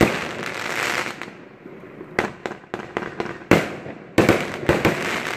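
Fireworks going off: a string of sharp bangs, one near the start and then a rapid volley from about two seconds in, with crackling hiss trailing between the reports.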